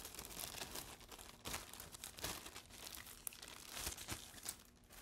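Clear plastic packaging crinkling as a boxed foiling die set in its plastic sleeve is handled, a run of soft, irregular crackles.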